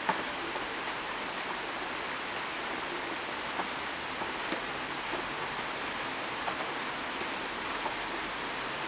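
Steady rain falling in a forest, an even hiss with scattered individual drops ticking close by, one louder drop just after the start.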